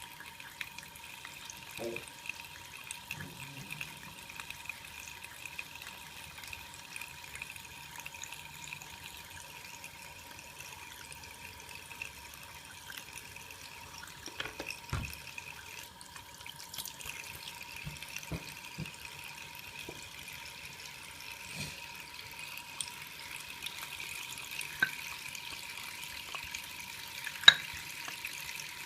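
Shaving brush working up lather on Col. Conk shaving soap: a steady wet, squelching hiss with scattered light clicks, and one sharp click near the end.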